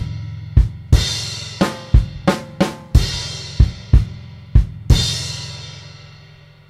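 Acoustic drum kit with Meinl cymbals playing the closing bars of a piece: snare, tom and kick strokes about two a second, ending about five seconds in on a final crash-cymbal hit that rings and fades away.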